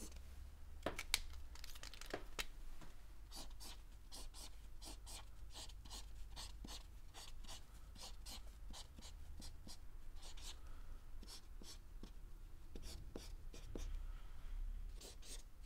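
Felt-tip marker pen drawing on paper: many short, quick strokes in bursts, with a pause about two-thirds of the way through.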